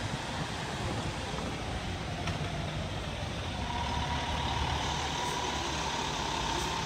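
Fire engine's diesel engine running as the truck drives up and turns close by, a steady low rumble. About halfway through, a whine rises and then holds steady.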